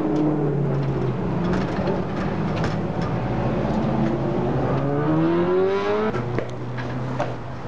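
Street traffic: a motor vehicle's engine running, rising steadily in pitch as it accelerates from about four and a half to six seconds in, with a few scattered clicks.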